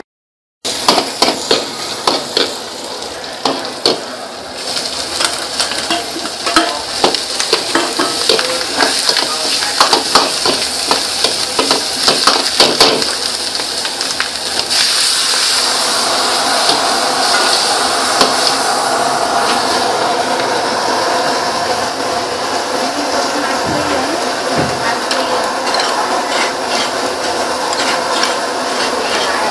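Stir-frying in a steel wok: a metal ladle knocks and scrapes against the pan while garlic and chilies sizzle in oil. About halfway through, the sizzle becomes louder and steadier and the knocking thins out.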